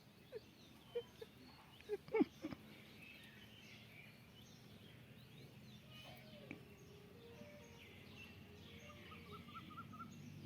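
Faint bird chirps and calls over a low steady hum, with a few soft knocks in the first few seconds.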